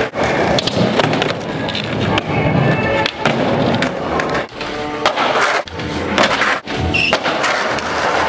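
Music track playing over skateboarding, with skateboard wheels rolling on concrete and the occasional sharp clack of a board.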